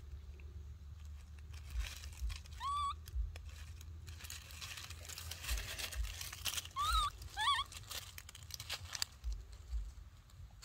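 Dry leaf litter rustling and crunching as a baby macaque moves over it, heaviest in the middle. Over it come a few short, rising squeaky calls from the infant: one about three seconds in and two or three together around seven seconds.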